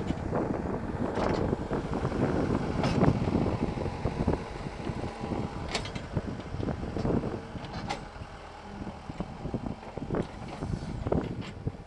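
Wind buffeting the camera microphone in uneven gusts, with a few short clicks.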